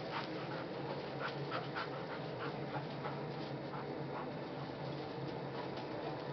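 Two dogs panting and scuffling as they play-fight in snow, with short irregular scuffing ticks over a steady low hum.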